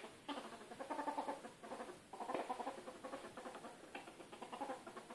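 Pet ferret dooking: a rapid, chuckling string of soft clucks in runs with brief breaks, the giggle-like sound a ferret makes when excited at play.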